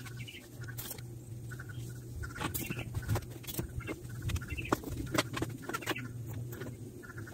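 Fine-grit sandpaper being rubbed by hand along a string trimmer's metal shaft tube: irregular rubbing and scuffing strokes with small clicks and squeaks, over a steady low hum.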